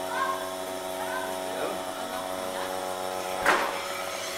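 Vacuum pump of a portable mini milking machine running with a steady hum while its teat cups milk a cow. One sharp knock comes about three and a half seconds in.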